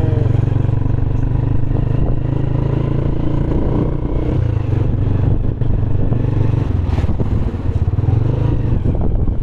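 Steady low engine drone and road noise of a moving vehicle heard from on board, with a sharp click about seven seconds in.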